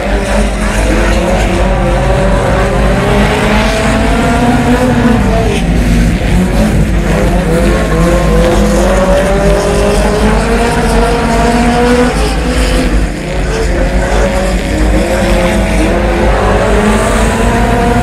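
A Honda Civic EG hatchback dirt-track race car's four-cylinder engine running hard under racing. Its revs repeatedly climb and fall, with a short lift off the throttle about 13 seconds in.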